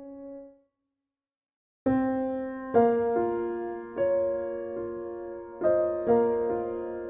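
Soft background piano music. It fades out, drops to silence for about a second, then new piano notes start and carry on.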